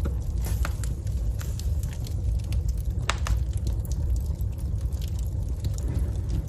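Wood fire crackling in a fireplace: scattered sharp pops and snaps over a steady low rumble of the flames, with a stronger pop about three seconds in.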